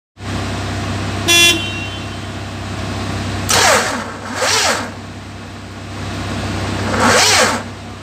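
Steady low engine hum. A short horn-like beep comes about a second in, and three loud hissing rushes follow, two in the middle and one near the end.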